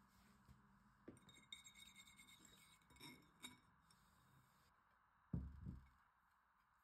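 Small wire whisk clinking lightly against a ceramic bowl as beaten eggs are stirred. About five seconds in, a plate is set down with a dull thud, the loudest sound.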